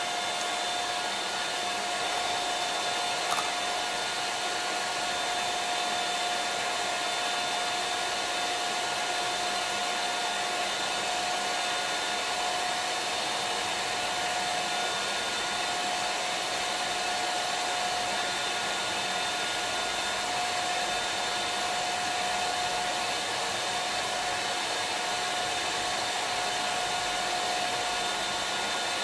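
Electric hand mixer running steadily at one speed, a constant motor whine, its beaters whipping instant cappuccino, sugar and hot water in a glass into dalgona coffee foam.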